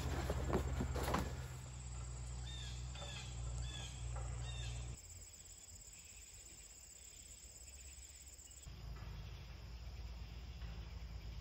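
Outdoor ambience: a few sharp knocks at the start, then four short chirps over a steady low hum. About five seconds in the hum stops and it goes quieter, and a low rumble comes in near the end.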